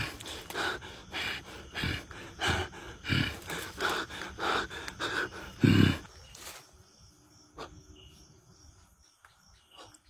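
Heavy, rapid breathing close to the microphone, a bit under two breaths a second, loudest just before it stops about six seconds in; a few faint ticks follow.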